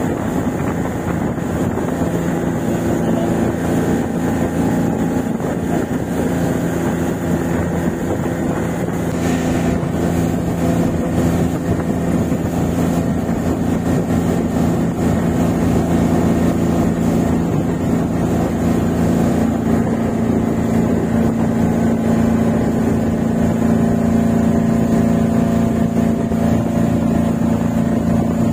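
Motorboat engine running steadily under way, a continuous low drone with a constant pitch.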